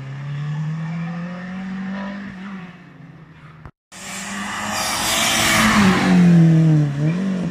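Slalom race car engine climbing slowly in pitch as it approaches; the sound cuts out briefly at an edit, then a race car passes close at speed, its engine revving with the note dipping and rising again, and road and tyre noise peaking as it goes by.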